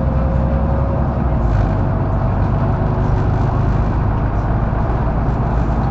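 Mercedes-Benz O530 Citaro Facelift intercity bus driving, its engine and road noise heard from inside the passenger cabin, steady and loud. A faint whine sits over the rumble for the first few seconds.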